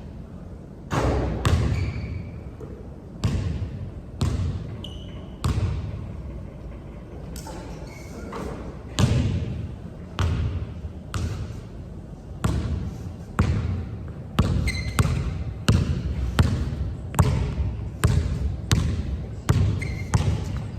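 A basketball bouncing on a hard court as a player dribbles. The bounces come about once a second at first and speed up to about two a second in the second half, with a few brief high squeaks between them.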